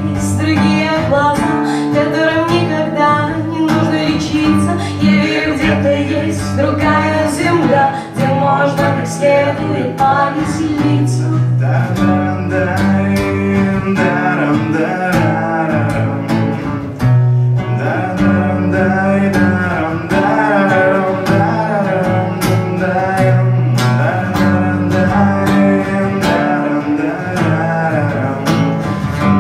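Acoustic guitar strummed in a steady rhythm, with a woman singing a melody over it, performed live.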